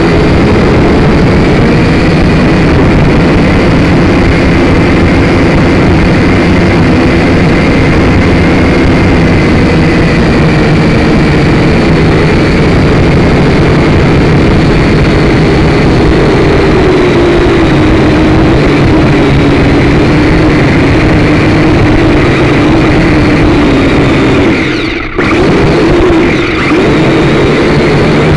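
Syma X5C-1 quadcopter's four small brushed motors and propellers buzzing loudly and steadily as it takes off and flies, heard through its onboard camera's microphone. The pitch drifts a little as the throttle changes, and the sound briefly drops out twice near the end.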